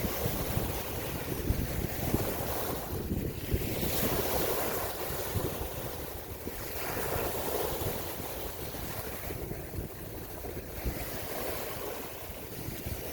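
Ocean waves washing in, swelling and fading every few seconds, with wind buffeting the microphone in a low, gusty rumble.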